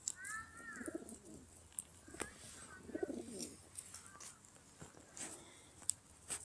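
Rock pigeon cooing: two low, wavering coos, about a second in and about three seconds in.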